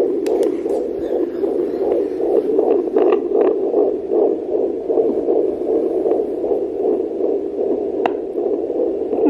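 Handheld Neeva Baby fetal doppler's loudspeaker giving a steady whooshing static, pulsing unevenly, as the probe is moved over a 15-weeks-pregnant belly in search of the baby's heartbeat. A few short clicks come through, near the start, about three seconds in and about eight seconds in.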